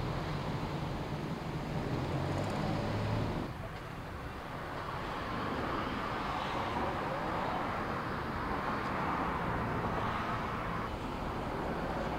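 Steady outdoor street noise of traffic, with no distinct events; the background changes abruptly about three and a half seconds in.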